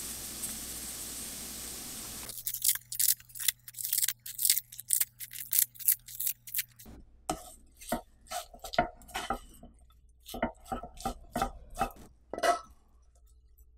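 A pan's faint sizzle, then a quick run of crisp, high crackles as dried seasoned laver goes into kimchi fried rice. A spatula then scrapes and knocks through the rice, with a few knocks as it is spooned into a glass bowl near the end.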